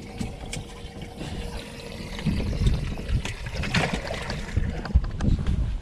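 Water trickling and splashing, with a louder splash about four seconds in and a few light knocks, as a striped bass is handled and put away in the boat. Wind rumbles on the microphone.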